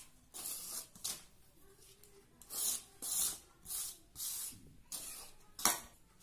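A hand rubbing and scraping oil through dry flour in a stainless steel bowl: dry, hissing strokes at about two a second, with a sharper, louder stroke near the end.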